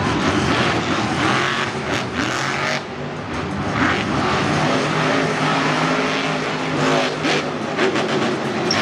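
Monster truck's supercharged V8 engine revving hard, the pitch rising and falling in repeated surges as the truck drives across the dirt and launches off a ramp near the end.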